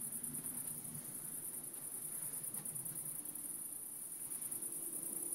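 Crickets chirping in a steady, fast, high-pitched trill.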